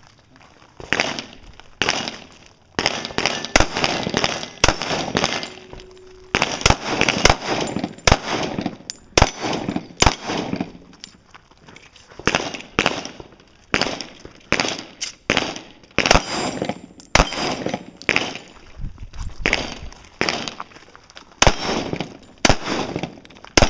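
Handgun shots fired in a long, uneven string, about one to two a second, with short pauses between groups of shots. Each shot is followed by a short echo.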